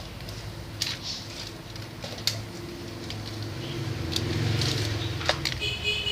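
A low steady rumble that grows louder about four seconds in, with a few sharp clicks scattered through it.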